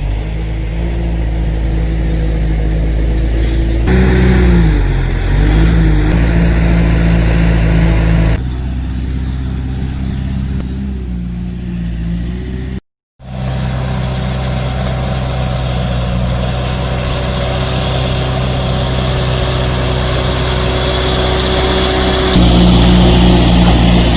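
Diesel engine of heavy earthmoving equipment running steadily. Its pitch dips and recovers under load about four to six seconds in. The sound changes abruptly several times and drops out for a moment about thirteen seconds in.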